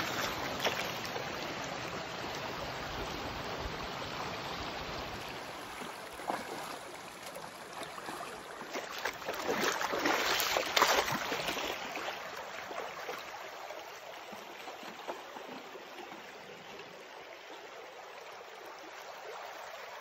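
Shallow creek water running and splashing as someone wades barefoot through it, with a louder run of splashes about ten seconds in, growing quieter near the end.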